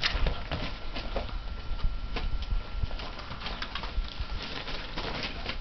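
Mastiff puppies at about five weeks play-wrestling, their paws and claws pattering and scrabbling on a towel and floor mat in a fast, irregular run of small knocks and scuffs.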